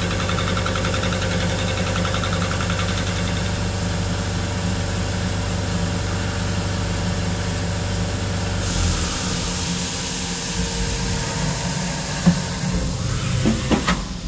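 Milling machine fly-cutting a cold-rolled 1018 steel plate, the cutter spinning at 680 RPM and taking an 11-thousandths facing cut to skim off the surface scale, with a steady machine drone. About two-thirds in, the low drone drops away and a hiss starts, followed by a few knocks near the end.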